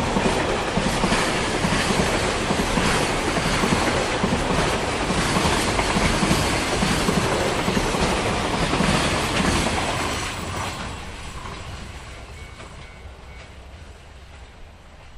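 Koki container flatcars of a freight train rolling past close by, their wheels running over the rails in a dense, steady clatter. The last wagon goes by about ten seconds in, and the noise then fades steadily as the train draws away.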